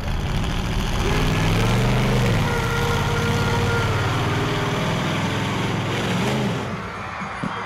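Monster truck engine revving loudly as the truck drives out, rising and falling in pitch, then easing off about six and a half seconds in.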